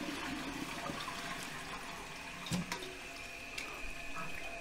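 Toilet cistern refilling through its fill valve after a test flush: a steady rush and swirl of water into the open tank, with a light knock about halfway.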